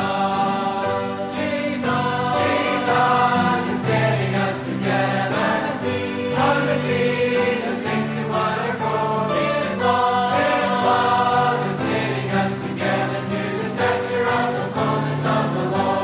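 A choir singing a Christian hymn in slow, sustained notes over a steady bass line.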